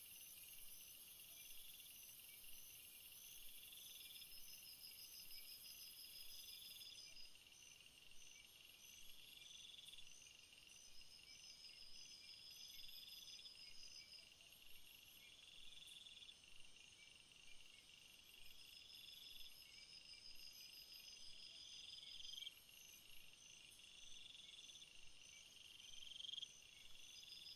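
Faint forest insect chorus: high-pitched, cricket-like trills, with a call repeating about every two and a half seconds that rises at its end. A very high hiss drops away about seven seconds in.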